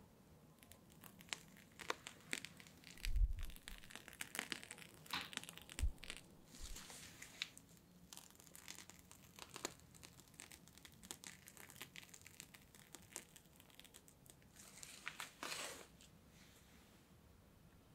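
Plastic piping bag crinkling and rustling in irregular short crackles as whipped cream is squeezed out through its metal tip. A low thump comes about three seconds in.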